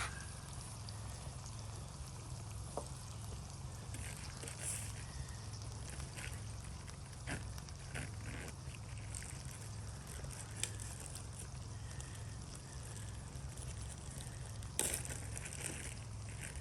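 Peppers and onions sizzling in a pan over a campfire, a steady hiss with scattered sharp clicks and crackles, one louder click near the end.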